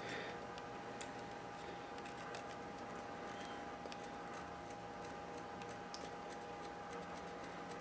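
Faint, scattered light ticks and scrapes of a wax temperature crayon being rubbed onto the inner race of a steel ball bearing, over a faint steady hum.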